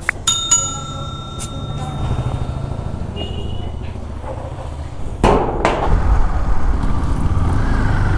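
Sharp metal clinks, one ringing on for a couple of seconds, as the tyre inflator's air hose and fittings are handled. About five seconds in, a KTM Duke 390's single-cylinder engine runs steadily under wind noise as the bike is ridden.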